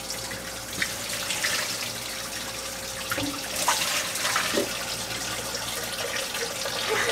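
Bilge water splashing and pouring as it is scooped into plastic cups and emptied into a stainless galley sink, in a few louder splashes over a steady wash of water. A faint steady hum runs underneath. The water is seawater leaking in through the stern tube while the shaft seal is replaced with the boat still afloat.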